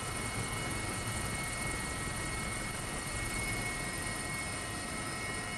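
British Army AH1 Wildcat helicopter in flight, heard from inside its cabin: a steady rush of rotor and turbine noise with several steady high-pitched whines running through it.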